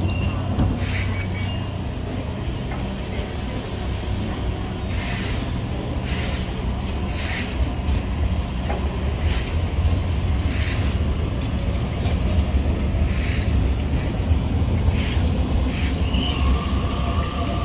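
Sydney Trains electric double-deck train running with a steady low rumble, broken by a series of short hisses. Near the end a steady high whine sets in.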